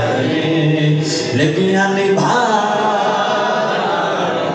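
A man singing a Punjabi devotional verse in praise of Ali, unaccompanied, in long held notes that glide between pitches.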